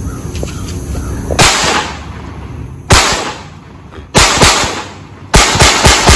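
Walther P22 .22 LR semi-automatic pistol firing: single sharp shots a second or more apart, then quickening into a rapid string of shots near the end.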